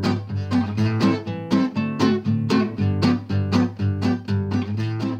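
Background music: a guitar, acoustic in sound, played in a steady, even rhythm of repeated strokes.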